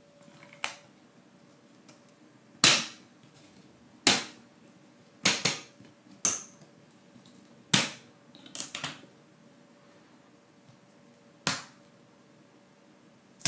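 Laser-cut plywood pieces of a ROKR LK701 wooden gear locomotive kit being worked by hand: a string of sharp wooden snaps and clicks, irregularly spaced a second or two apart, with a longer pause near the end.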